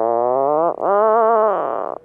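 Puffin giving two long, drawn-out calls in a row. Each call rises and then falls in pitch and has a wavering tone.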